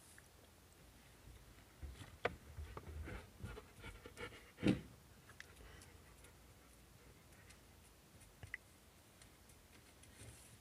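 Rottweiler's claws clicking and tapping on a tile floor as it walks about, with a couple of sharper knocks about two and five seconds in.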